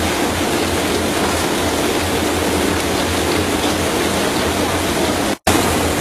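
Brush-roller potato washing and peeling machine running, its brush rollers turning a load of potatoes, a steady noise over a constant hum. The sound cuts out for an instant near the end, then carries on.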